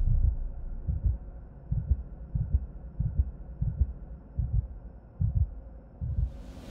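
A slow pattern of low thuds, several falling in close pairs like a heartbeat, over a faint steady hum; a whoosh sweeps in near the end.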